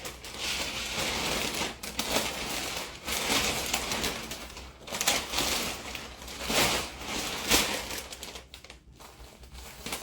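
Plastic vacuum storage bag crinkling and rustling as plushies are stuffed into it, in uneven swells.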